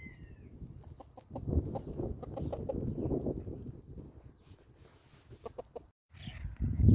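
Chickens clucking: a run of quick, low clucks from about a second in, a few short clucks later, and a brief loud thump at the very end.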